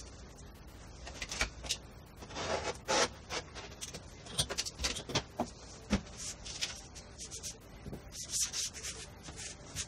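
Hands rubbing and sliding a leather hide, a paper pattern and a metal ruler across a workbench: a string of short, irregular brushing and scraping strokes, sped up four times.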